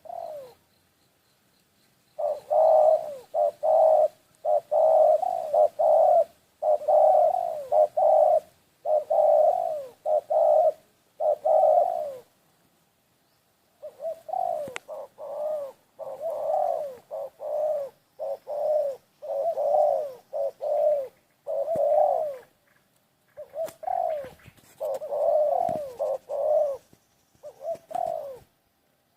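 Dove cooing: a long run of low coos in phrases, broken by short pauses and a longer break about twelve seconds in.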